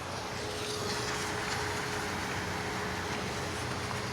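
Outdoor street noise, mostly traffic, coming straight in through an open apartment window: a steady wash of passing vehicles, with a faint held tone through the first couple of seconds.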